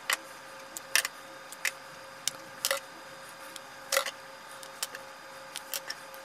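Small push-button circuit boards snapped apart from their strip by hand: a string of sharp cracks and clicks, about ten in six seconds, the loudest about one second and four seconds in.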